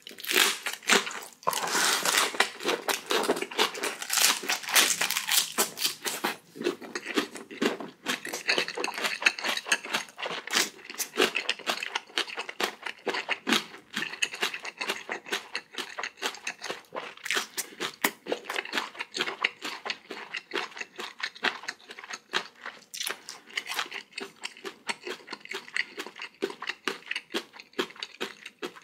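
A person chewing crunchy food close to the microphone: dense crisp crunches mixed with wet mouth sounds, loudest in the first several seconds.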